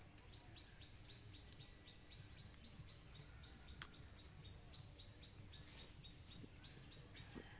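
Faint outdoor ambience: a steady, rhythmic high chirping at about five chirps a second over a low rumble, with a few sharp clicks.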